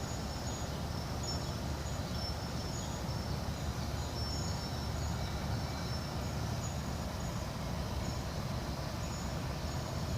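Steady background rumble, heaviest in the low range, with faint broken high-pitched tones above it.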